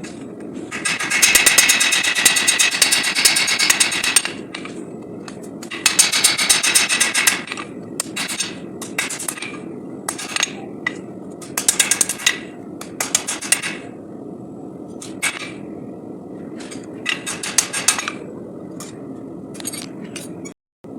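Hand forging: a hammer striking hot steel on an anvil in quick runs of blows, the longest about three seconds, with shorter groups of strikes and pauses between, over a steady background noise.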